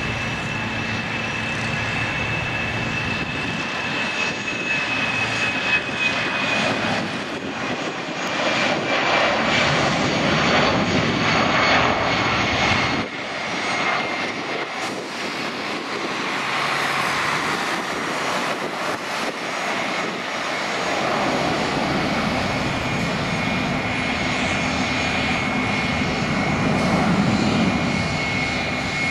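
Airbus A319's twin CFM56 turbofan engines at take-off thrust as the jet runs down the runway, lifts off and climbs away: a steady, loud jet engine noise with a high whine that slowly falls in pitch.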